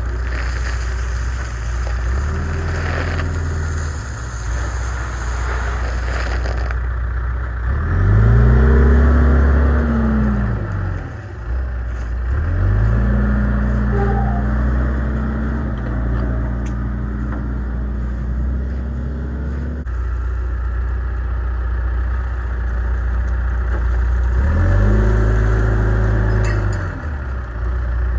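Diesel engine of heavy earthmoving equipment idling and revving up three times, the pitch climbing and dropping back each time; the middle rev is held for several seconds. A bright hiss runs over it for the first several seconds.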